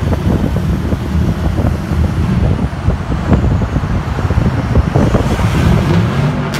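Straight-piped Dodge pickup's exhaust running loud and deep, echoing under a concrete overpass. Its pitch rises near the end as the truck accelerates away.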